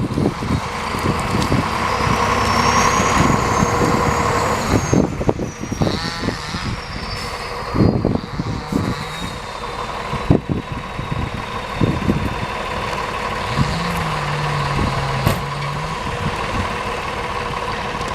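T-150K wheeled tractor's diesel engine running, with a high whine that rises over the first few seconds and then slowly falls, and scattered knocks and clunks.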